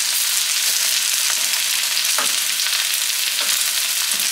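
Sausage sizzling and popping in a hot frying pan: a steady, even frying hiss.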